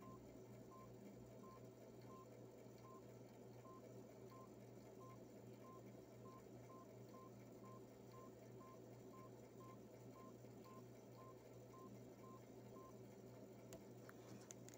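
Faint short keypad beeps from a Samsung C5212 button phone, one for each press of the navigation key as it is pressed over and over to scroll down, a little under two a second and quickening slightly. They stop near the end, and a couple of soft clicks follow, over a steady low hum.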